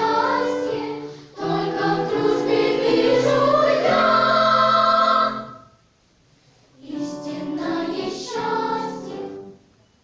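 A children's choir singing in several voices, in phrases. A long held phrase rises and then breaks off about five and a half seconds in, and after a pause of about a second a further phrase follows and ends near the close.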